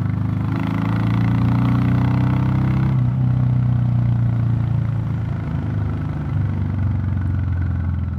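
Royal Enfield Classic 350 single-cylinder engine, fitted with a DNA Stage 2 performance air filter, running steadily under the rider at road speed.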